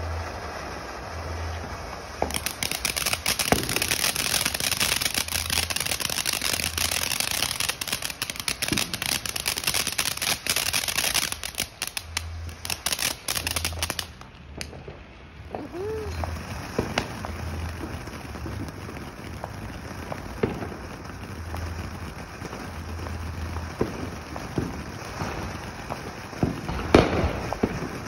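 Consumer fireworks: a ground fountain spraying sparks crackles densely for about twelve seconds, then cuts off abruptly. After that come scattered pops and small bangs, with a cluster of sharper bangs near the end.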